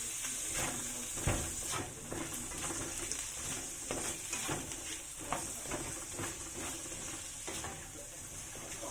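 Food sizzling in a frying pan, with a spatula knocking and scraping against the pan as it is stirred, many short clicks over a steady sizzle.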